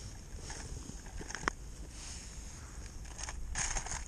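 Crushed ice and slush crunching and scraping under hands at a hole in lake ice while an ice-fishing tip-up is set, with a sharp click about a second and a half in and a louder crunch near the end.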